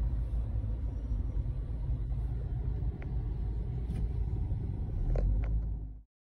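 Steady low rumble of a car heard from inside the cabin, with a few light clicks near the end. It cuts off abruptly just before the end.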